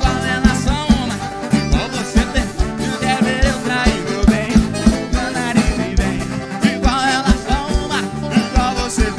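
Live sertanejo band playing an upbeat song, with a drum kit keeping a steady beat under the melody instruments.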